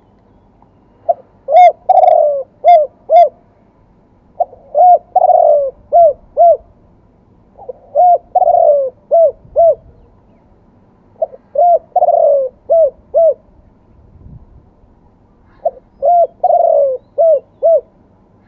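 Spotted dove cooing in the '2 kuk' style. It gives five phrases about three and a half seconds apart, each a quick run of short coos around one longer, drawn-out coo.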